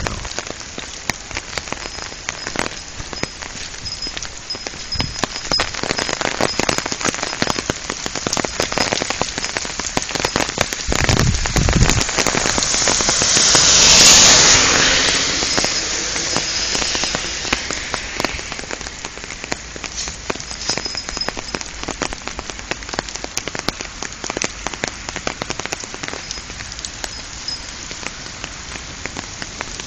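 Steady rain falling, with many sharp ticks of drops striking close by. Near the middle a car passes on the wet road: the hiss of its tyres on water swells to the loudest moment about fourteen seconds in, then fades.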